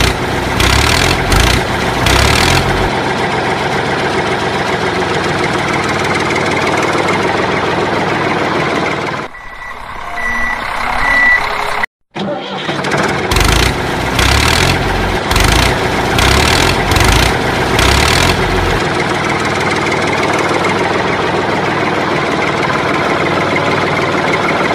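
Tractor engine sound effect: an engine starting with a run of heavy low chugs, then running steadily. After a brief cut about twelve seconds in, the same start-up and steady running repeats. A few short high beeps sound just before the cut.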